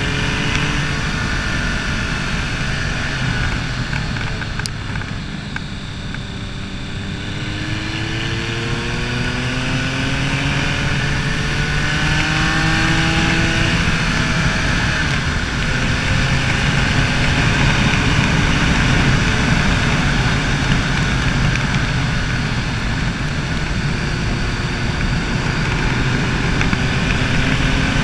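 BMW K75 custom motorcycle's three-cylinder engine running under way, heard over steady wind and road noise. The engine note sags about five seconds in, climbs as the bike pulls again, then holds fairly steady.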